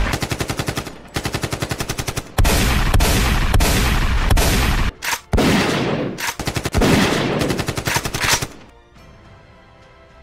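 Dubbed automatic-rifle gunfire sound effect: several long bursts of rapid shots that stop about eight and a half seconds in, leaving faint background music.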